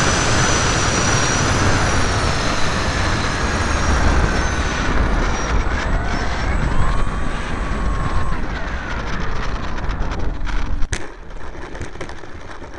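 Wind rushing over an on-board camera and the high whine of a ParkZone T-28 model plane's electric motor and propeller as it flies low. About eleven seconds in there is a sharp knock as the plane touches down on the sand, and the sound drops much quieter.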